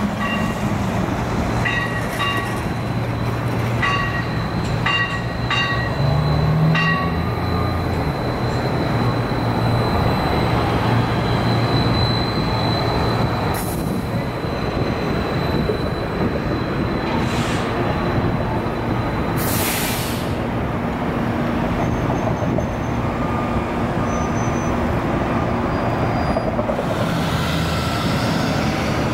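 City street traffic with a battery-powered streetcar and electric trolleybuses passing: a steady low hum and a thin high whine. Short ringing tones repeat several times in the first seven seconds, and a few loud hisses come in the second half.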